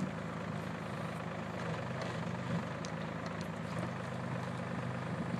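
Excavator engine running steadily at an even, low hum, with no revving.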